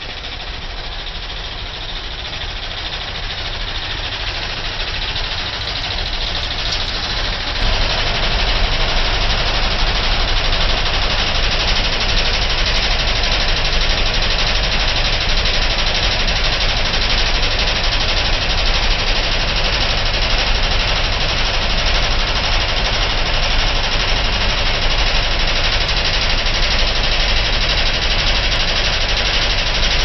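Outdoor air-conditioner (heat-pump) unit making a loud, strange mechanical noise, a dense rapid clatter. It grows louder over the first several seconds, jumps up sharply nearly eight seconds in, then holds steady.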